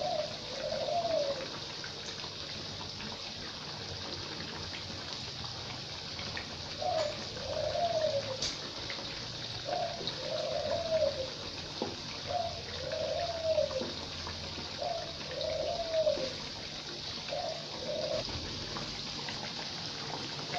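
Oil sizzling steadily as battered breadfruit slices deep-fry in a wok. Over it, a dove coos about six times, each call a short note followed by a longer arched one, every couple of seconds. A utensil clinks against the pan a couple of times.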